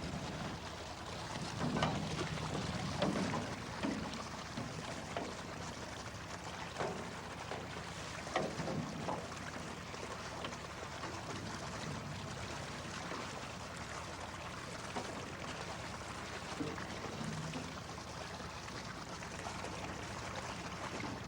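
Water sloshing and splashing in short irregular bursts over a low steady hum.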